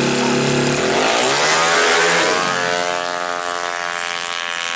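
Drag-racing motorcycle engine held at high revs at the start line, then launching: the pitch climbs steeply about a second in. It then holds a high, steady pitch and grows quieter as the bike pulls away down the strip.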